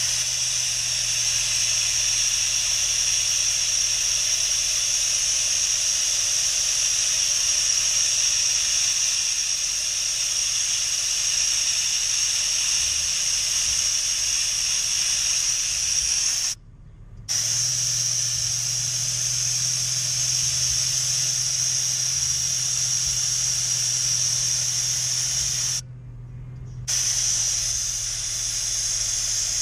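Air hissing steadily out of a Toyota FJ Cruiser's rear tire through a screw-on tire deflator with the valve core removed, airing the tire down from about 33 psi toward 12 psi. The hiss cuts out abruptly twice, briefly, about 17 and 26 seconds in, then resumes.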